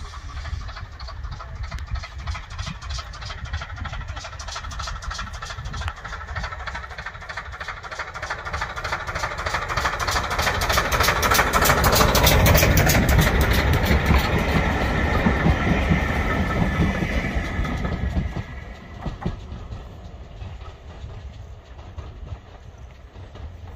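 Pannier tank steam locomotive and its coaches passing close by, the exhaust beats and the clatter of wheels over rail joints growing louder as the train approaches. It is loudest about halfway through, then fades as the train draws away.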